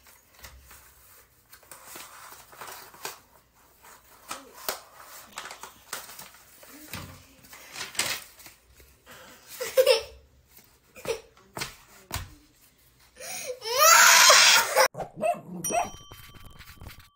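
Brown paper and cardboard rustling, crackling and knocking as a child handles and waves it. Loud laughter breaks out near the end, followed by a ringing chime.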